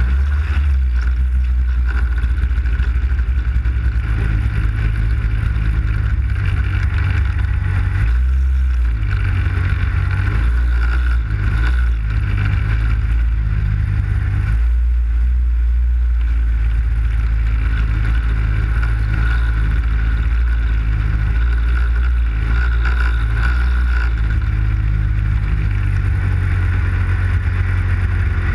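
Arctic Cat snowmobile running as it rides along: a steady loud low drone with a higher whine over it.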